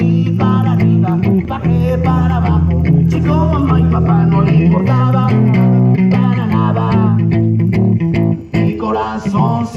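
Live band music with no singing: an electric guitar plays a quick, wavering lead line over a steady bass guitar line. The music drops out briefly near the end.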